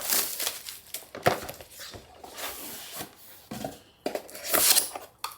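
Packaging being handled as a docking station is unboxed: scattered light knocks and clicks of cardboard and plastic, with a louder rustling scrape of packaging a little before the end.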